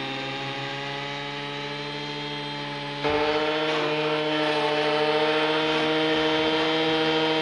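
Brushcutter engine running steadily at a high, even pitch while its propeller-shaped mulching blade cuts grass. The sound steps louder about three seconds in.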